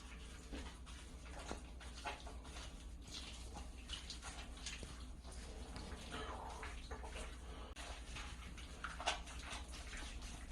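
Kittens mewing faintly: a few short mews, the clearest about nine seconds in, among faint scattered clicks.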